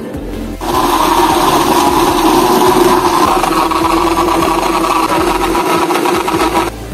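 Electric motor of a drink-stall machine running with a steady whir. It starts just under a second in and stops shortly before the end.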